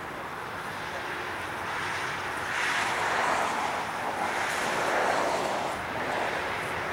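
Steady outdoor background hiss with no engine running, swelling louder twice, at about a third and about two thirds of the way through.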